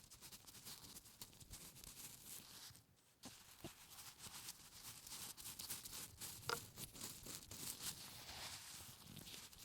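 Quiet, scratchy rustling and crinkling of close-miked food preparation, with a sharper click about six and a half seconds in.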